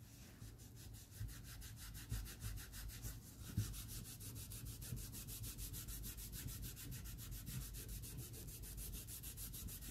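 Cotton pad with Bar Keepers Friend scrubbing the copper-plated face of a golf iron in fast, even back-and-forth strokes, several a second, rubbing off burnt, heavy copper deposits left by over-plating. The scrubbing is quiet.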